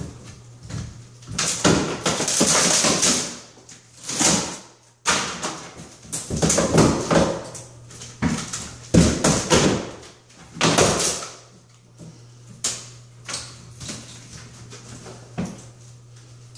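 A wedged piece of a fiberglass tub surround being pulled and wrenched against the wall framing by hand: repeated scraping, rattling and knocking in uneven bursts, the longest one early on and several sharp knocks through the middle.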